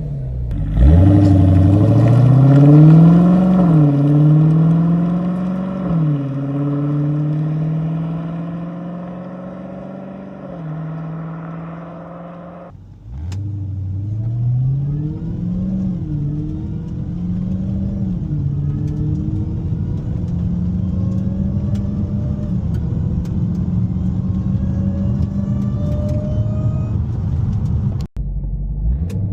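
Supercharged 6.2-litre Hellcat V8 on its stock exhaust, accelerating hard: engine pitch climbs and drops through several quick upshifts, loudest in the first few seconds, then eases off. After a cut about 13 seconds in, it pulls away again through a series of upshifts and settles into a steady drone.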